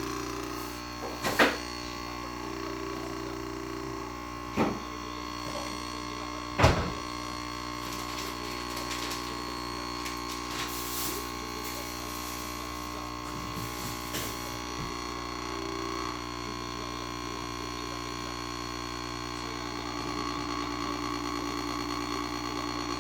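Coffee machine humming steadily, with three sharp knocks in the first seven seconds. Near the end the machine's sound turns into a louder, rapid buzz.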